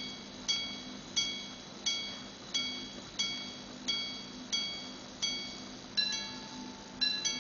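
Repeater pocket watch striking the time on its gongs after the chime slide is released: a run of single ringing strikes about every two-thirds of a second, then from about six seconds in, strikes in two-note pairs, the pattern of hours followed by quarters.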